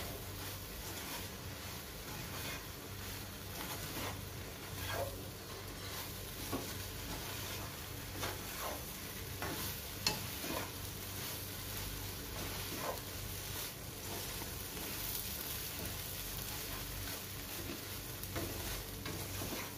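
Toasted bread pieces being stirred through masala in a hot nonstick pan over a light sizzle, with scattered scrapes and taps of the stirring utensil against the pan.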